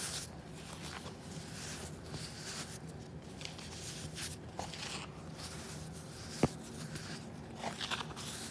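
Hands squeezing and crumbling baking soda powder, giving soft crunches and rustles in short bursts about every second, with one sharp click about six and a half seconds in.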